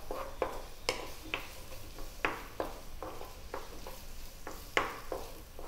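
Wooden spatula stirring and scraping sliced red onions frying in oil in a nonstick frying pan, in irregular strokes about two a second, over a faint sizzle. The onions are early in frying, still pale, and being cooked until brown.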